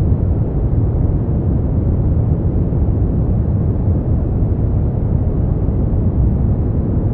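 Steady brown noise: an even, deep rush with most of its weight in the low end, fading away toward the highs, unchanging throughout.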